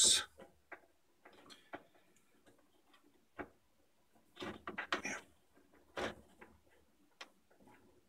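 Scattered small plastic clicks and taps as a stiff wiring-harness plug is pried and wiggled loose from a washing machine's control board, with a busier run of clicks about halfway through.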